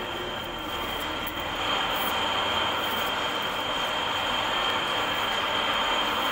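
Steady machine noise with a continuous high whine, growing somewhat louder a couple of seconds in.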